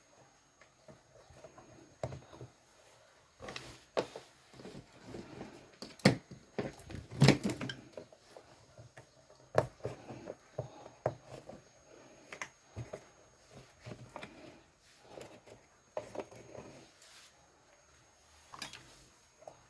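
Irregular clicks, taps and knocks of hands handling an LED TV motherboard as it is set up on a PCB tester, with a louder clatter about six and seven seconds in.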